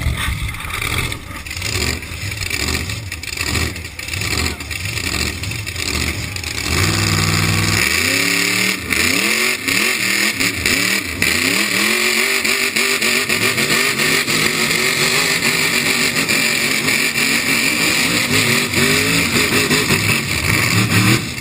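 Engine of a lifted mud truck on giant tractor tires at full throttle in a truck pull, revving hard up and down as the tires spin. The first few seconds hold a lower, uneven rumble before the revving starts.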